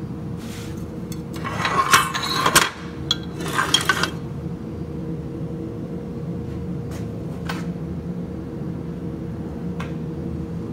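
Rusty metal parking brake lever assembly clanking and scraping against a metal workbench as it is handled, a cluster of clanks between about one and four seconds in, then a few light taps, over a steady background hum.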